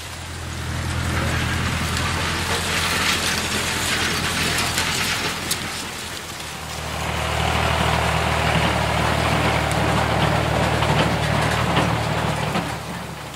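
Engine running steadily: a deep, even drone under a loud hiss. It dips about halfway through, comes back up, and cuts off at the end.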